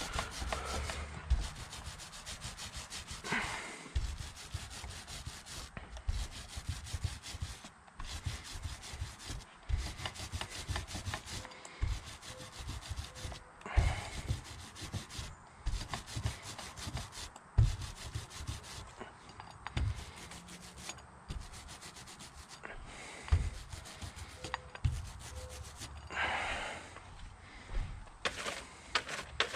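Paint roller rolling paint onto a garage door: a continuous rubbing, slightly sticky sound in repeated strokes, with frequent light knocks.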